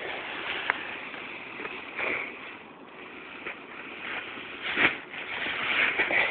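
Nylon fabric of a paramotor wing rustling and flapping as it is pulled out and unrolled by hand, mixed with wind on the microphone, with a louder rustle about five seconds in.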